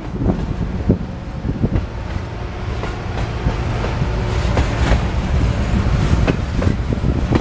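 Refrigerated boxcars of a freight train rolling past close by: a steady rumble of steel wheels on rail, with scattered clanks from the cars.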